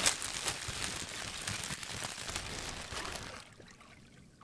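A dense crackling, crinkling noise made of many small clicks, fading away about three and a half seconds in.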